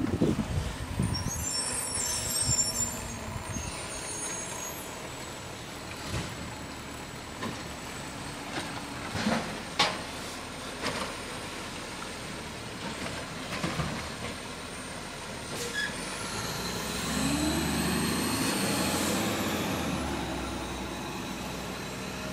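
Garbage truck's engine running as the truck drives along the street, with scattered knocks in the first half; in the last few seconds it gets louder, rising in pitch and then falling back.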